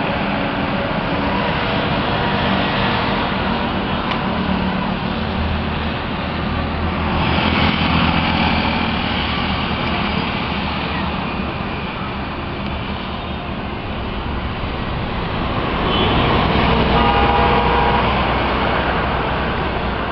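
Highway traffic passing below: a steady rumble of trucks, cars and motorcycles, swelling twice as vehicles pass close by, about seven seconds in and again about sixteen seconds in.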